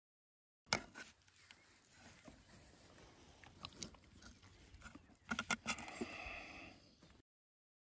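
A person eating close to the microphone: quiet chewing and crunching, with a few sharp clicks about five seconds in. It starts and cuts off abruptly.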